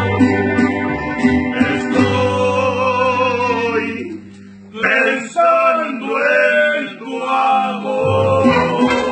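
Mariachi band with male voices singing together over strummed vihuelas and guitars and a guitarrón bass. About four seconds in the music briefly drops low, then the voices return with the bass dropping out until near the end, when it comes back in.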